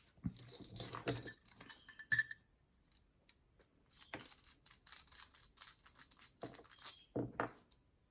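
Small metal tools and lock parts clinking and clattering as they are handled on a workbench: a cluster of sharp clinks in the first two seconds, lighter rapid ticking from about halfway, and two duller knocks near the end.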